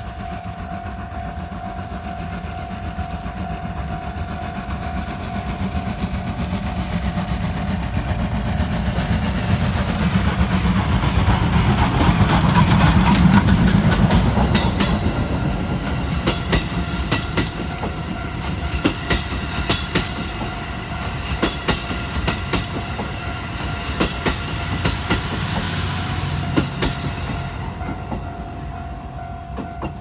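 JNR Class D51 steam locomotive (No. 200) working hard up a grade, its exhaust growing louder as it approaches and passes about twelve to fourteen seconds in. The passenger coaches then roll by with a clickety-clack of wheels over the rail joints, fading near the end.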